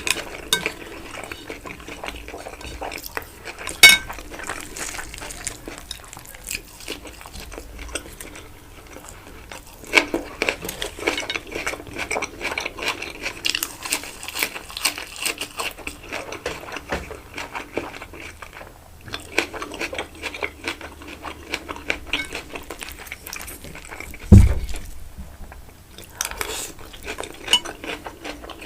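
Close-miked eating: cutlery clicking and scraping on a plate, with chewing of rice-stuffed chicken. There is a sharp clink about four seconds in and a dull, heavy thump late on.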